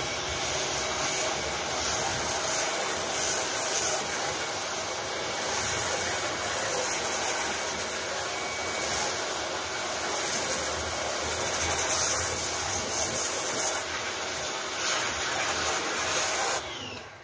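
Pressure washer running, its lance jetting water onto styrofoam hydroponic panels in a steady hiss, which cuts off just before the end.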